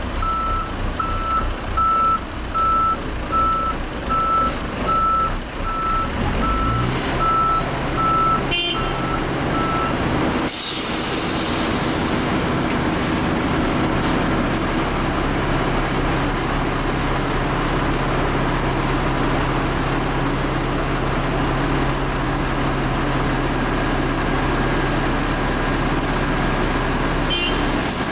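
Dump truck reversing alarm beeping about three times every two seconds for the first ten seconds, then a short air-brake hiss as the truck stops. After that, the diesel engines of the truck and the asphalt paver run steadily while the tipper body rises to tip asphalt into the paver.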